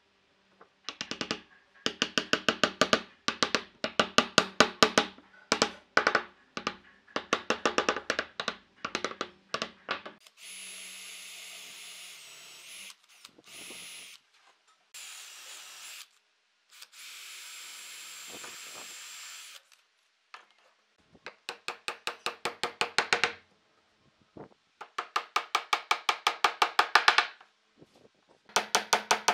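Rapid bursts of hammer taps on pine pieces and dowels, the loudest sound, for the first ten seconds or so; then a cordless drill boring dowel holes into the pine, a steady run with a high whine, stopping and starting a few times; then more bursts of quick hammer taps driving wooden dowels home.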